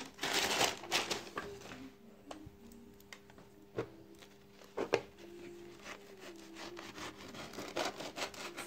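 Toasted bread and a knife handled on a plastic tray: scraping and rubbing for about two seconds, then quieter, with two sharp knocks about four and five seconds in and a few lighter taps near the end.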